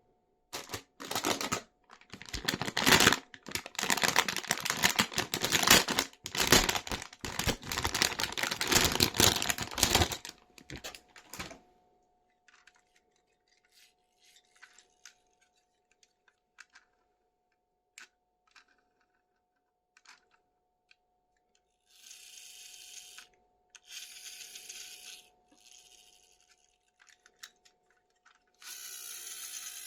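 Toy packaging being torn open and handled: dense crackling and tearing for about the first eleven seconds, then scattered small clicks, with short hissy rustles near the end.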